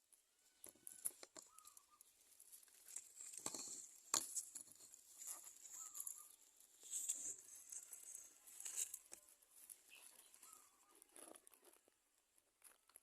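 Quiet, irregular rustling and scratching of dry nesting material as Society finches move about in the nest, with a few faint short chirps.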